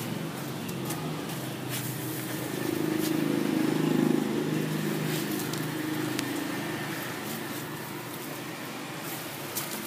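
A passing motor vehicle's low rumble, swelling to its loudest about four seconds in and then fading, with a few faint clicks over it.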